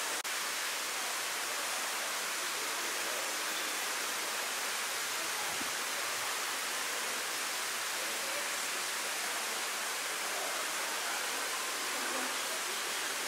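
A steady, even rushing hiss that runs without a break, like running water.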